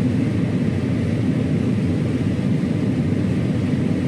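John Deere combine running steadily while harvesting corn: an even, low engine drone heard from inside the cab.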